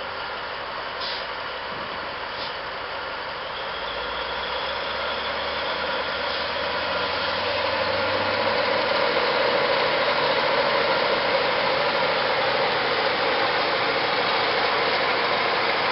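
Caterpillar mining haul truck's big diesel engine running, building over several seconds to a louder, steady pull under load as the truck strains against a tow strap.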